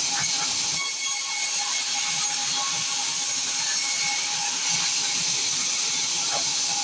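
Sawmill saw cutting through a large acacia log: a steady hissing noise with a faint steady whine, under background music.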